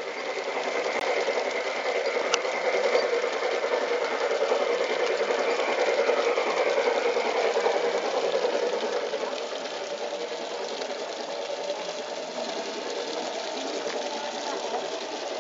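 Garden-scale model diesel locomotive running along its track, its electric motor and gearing giving a steady fast whir. It is loudest for the first eight seconds or so as it runs close, then eases off a little.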